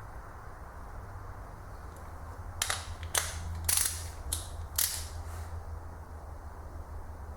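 Sharp metallic clicks of a click-type torque wrench, five or six in about two seconds, as bolts on a Toyota 2SZ engine reach the set torque of 19 N·m.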